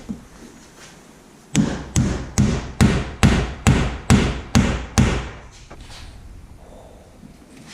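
A hammer striking a wooden plug into a hole in a workbench, about nine steady blows at roughly two to three a second, which then stop.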